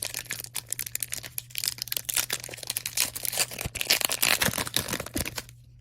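A foil trading-card pack wrapper being torn open and crinkled by hand, a dense run of crackles and rustles that stops shortly before the end.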